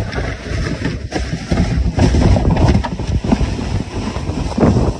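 A kayak hull sliding fast downhill over snow and dry grass, a rough scraping rumble that grows louder about a second and a half in as it picks up speed, with wind buffeting the microphone.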